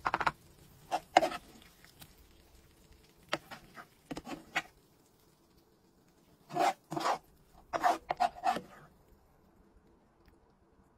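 Metal spoon scraping against a frying pan in short, rasping strokes as chips and baked beans are scooped out and served. There are about five bursts of scraping with quiet pauses between them.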